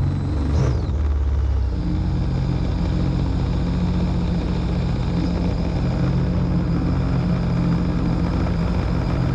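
Rotax 1503 engine of a personal watercraft, blipped briefly with a high whine rising and falling in the first second, then settling to a steady low-speed idle.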